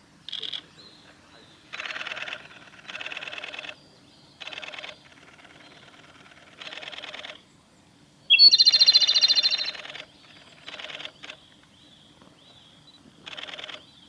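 Male Japanese robin singing: short rattling trilled phrases repeated every second or two. The loudest phrase, about eight seconds in, opens with a rising note and runs into a fast, even trill for over a second.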